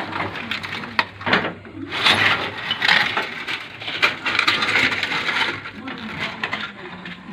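Rusty metal clinking and rattling in irregular bursts as an old jewelry rolling mill with its cast gears is pulled out of and handled among scrap metal.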